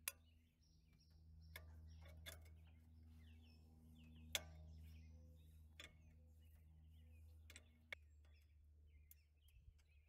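Faint scattered clicks and taps of a hand tool and parts against the engine's metal at the carburetor mount, about six in all, the sharpest a little past four seconds in. Birds chirp faintly over a steady low hum.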